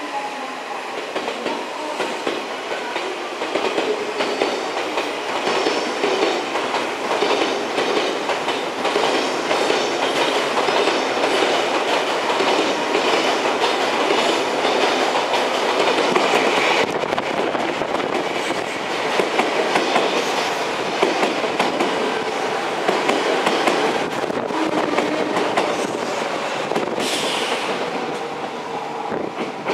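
An Odakyu electric train running past, its wheels clacking rapidly over rail joints and points, with a brief high-pitched sound near the end.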